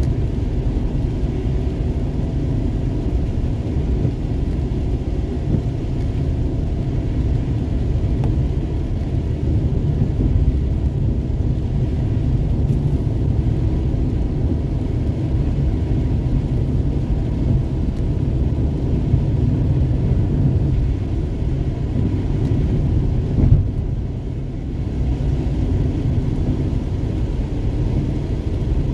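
Steady low drone of a truck driving on a wet highway, heard from inside the cab: engine and tyre noise on the rain-soaked road.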